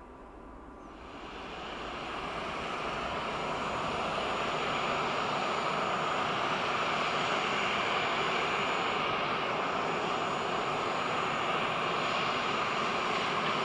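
Jet airliner's engines at takeoff power during the take-off roll: a broad rushing noise that swells over the first few seconds, then holds loud and steady.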